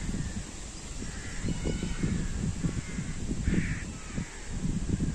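Crows cawing a few times, the clearest call about three and a half seconds in, over a loud, uneven low rumble.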